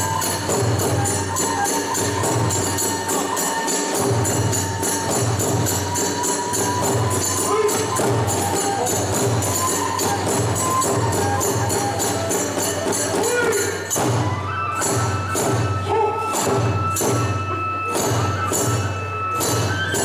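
Kagura hayashi accompaniment: drums, small hand cymbals (tebyōshi) and a bamboo flute playing a fast, driving rhythm with the flute holding long notes. About 14 s in, the beat breaks into more separate strokes and the flute moves to a higher held note.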